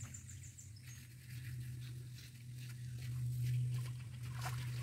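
Light rustling and crackling of dry material handled by hand on gravel, louder from about three seconds in, over a steady low hum. High insect-like chirping in the first second.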